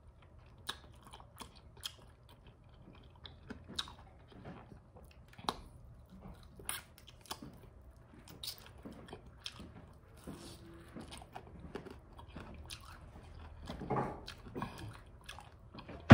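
A person biting and chewing crispy fried chicken, with irregular crunching clicks and a louder stretch of chewing about fourteen seconds in.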